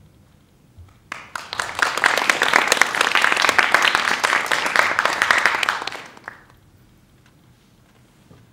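A small audience applauding. The clapping starts about a second in, holds steady for several seconds, and dies away after about five seconds.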